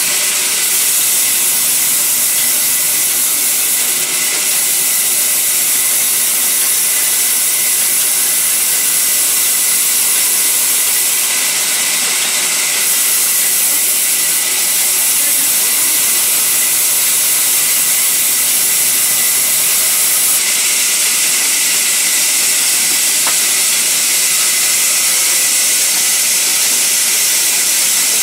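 Vertical band saw resawing a sal wood log: a loud, steady, high hiss of the running blade cutting through the timber, shifting slightly in tone a few times.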